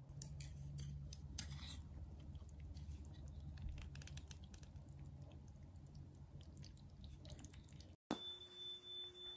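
Someone eating: irregular chewing and small crunchy clicks over a low steady hum. About 8 s in it cuts off abruptly and gives way to a few steady electronic tones.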